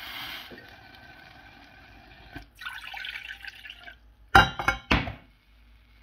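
Water poured from a cut-glass jug into a stainless-steel saucepan, in two pours with a short break between. About four and a half seconds in come a few sharp glass clinks and knocks as the jug is set down.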